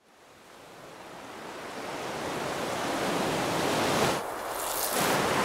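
Rushing sea noise fading in from silence and growing steadily louder, with a brief dip and change in tone about four seconds in.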